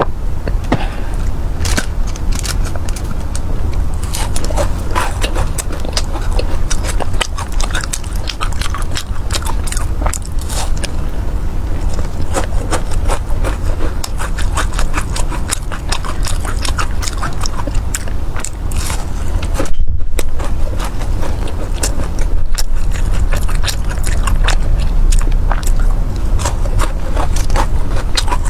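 Close-miked chewing and biting of sticky honey-glazed fried pastries (mi san dao and tang erduo), a dense run of irregular crunching and wet, sticky clicks. About two-thirds of the way through the sound drops out for a moment.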